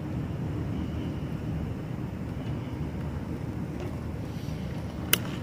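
Steady low rumble of a city street at night, with one sharp click about five seconds in.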